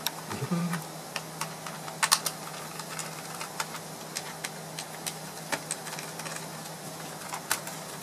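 Scattered light clicks and taps of a small screwdriver and fingers on a laptop's plastic underside and hard-drive bay screws, with a faint steady hum underneath.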